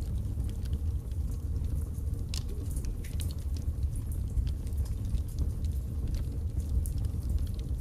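Birch logs burning in a fireplace: a steady low rumble of flame with frequent small, irregular crackles and pops from the wood.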